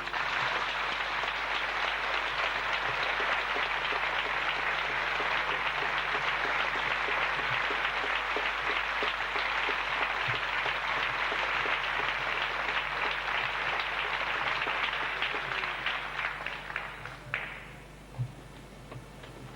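Audience applauding, steady for about sixteen seconds, then thinning out and dying away, with a few last single claps near the end.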